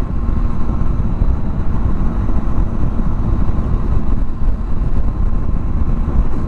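Steady wind rush over the microphone of a motorcycle at road speed, with the Triumph Tiger 800's three-cylinder engine running evenly underneath.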